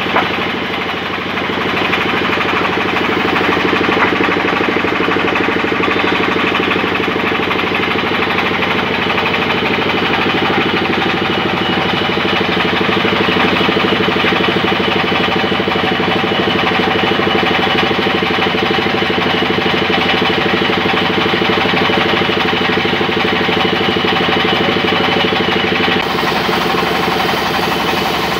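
Belt-driven sawmill band saw running steadily as a large log is pushed through the blade, with a drive engine running under it. The sound shifts slightly near the end.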